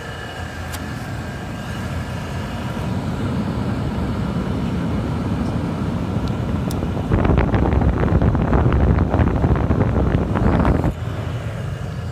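Make-up air unit's blower motor starting and coming up to speed: a low rush of air that builds steadily over several seconds. About seven seconds in, a much louder, rough rushing noise comes in for about four seconds, then drops away suddenly.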